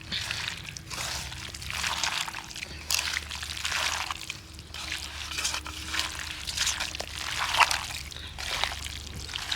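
Raw chicken pieces being mixed by hand or spoon with curd, oil and spice masala: wet squelching, sloshing strokes about once a second.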